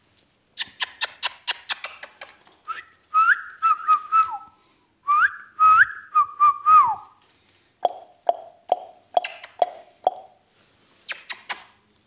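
Ringneck parakeet whistling: two runs of pitched notes with rising and falling glides, then a quick series of short, lower notes at about five a second. A run of sharp clicks comes before the whistles, and more clicks come near the end.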